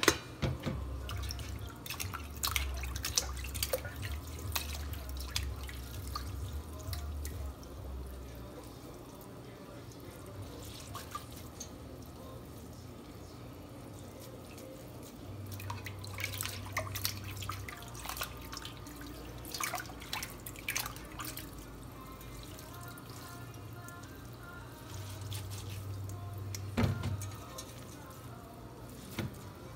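Water dripping and trickling from cooked rice vermicelli noodles as they are pressed and squeezed by hand in a plastic colander over a stainless sink, with scattered small wet clicks and splashes. One louder knock near the end.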